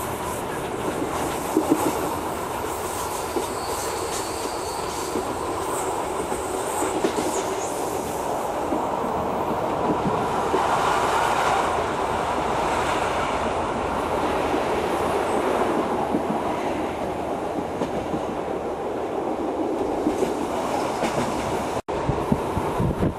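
Passenger train running on rails, heard from inside the carriage: a steady rumble of wheels and track with a few sharp clicks. The sound cuts out for an instant near the end.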